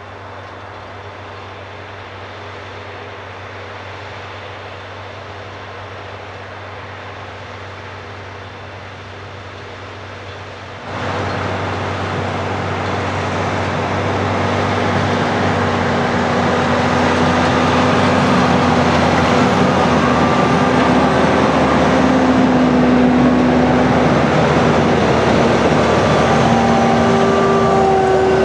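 Case IH Magnum 340 tractor's six-cylinder diesel engine running under load while pulling a Köckerling Ultima seed drill through dry soil, growing louder as it comes closer. About eleven seconds in the sound jumps abruptly louder, and higher whining tones join in as the tractor passes close by.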